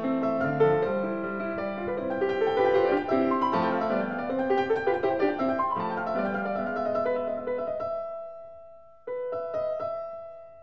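Background piano music: a flowing run of notes that thins and fades near the end, then a single chord struck and left to ring.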